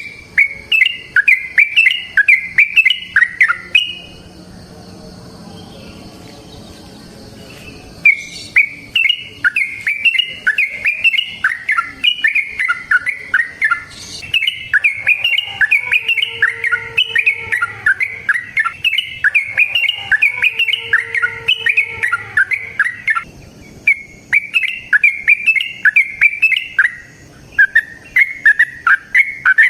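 Yellow-vented bulbul (trucukan) singing long, fast runs of bubbly chirping notes: the long 'ropel' song used as a lure for other trucukan. The song breaks off for a few seconds near the start, then resumes in a long unbroken run, with a brief pause about two-thirds of the way through.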